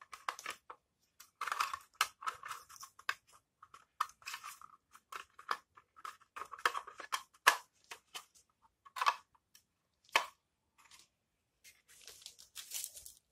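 Plastic housing and cover of a solar light being handled and pressed together: irregular clicks, knocks and short scrapes, with a longer scraping rustle near the end.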